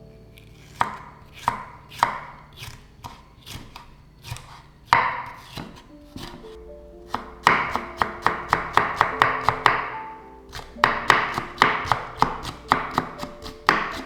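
A kitchen knife chopping on a cutting board: single cuts spaced out at first, then quick runs of about five cuts a second, with soft background music underneath.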